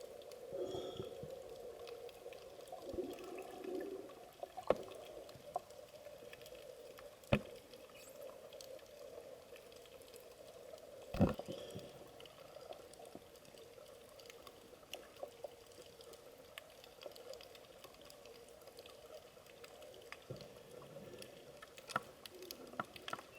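Underwater recording of a coral reef: a faint, steady watery hiss full of scattered fine clicks, broken by a few louder sharp knocks and pops about 5, 7 and 11 seconds in.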